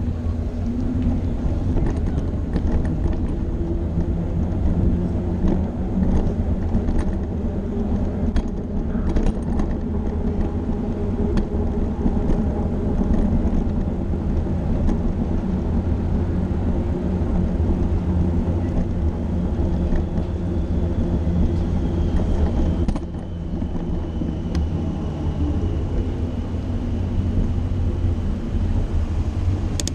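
Steady low rumble of wind and road noise on a camera carried on a moving bicycle in city streets, with car traffic around it. A faint high whine joins in for the last third.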